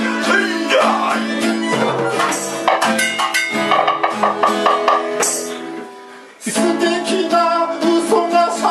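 Live band music: a strummed acoustic guitar and a makeshift drum kit of snare, tambourine and hand drums being hit hard, with singing. Just after the middle the music fades almost out for about a second, then the whole band comes back in sharply.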